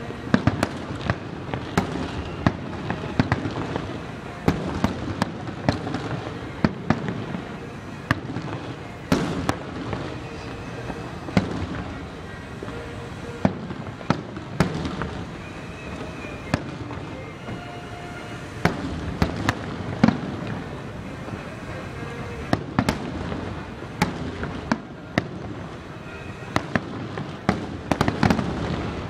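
Aerial fireworks display with shells bursting in quick, irregular succession. Sharp bangs come every second or so over a constant noisy background.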